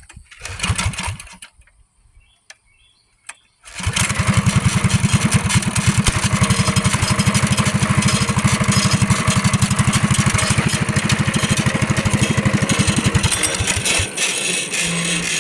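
Mini bike's small single-cylinder engine, fitted with an aftermarket exhaust, catching about four seconds in after some handling sounds and clicks, then running loud and steady with a fast pulse. Near the end the low pulsing drops away and the sound gets quieter.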